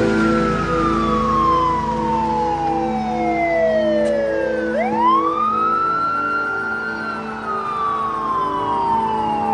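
Ambulance siren wailing: a pitch that climbs, holds and then slides slowly down, starting its next climb about five seconds in.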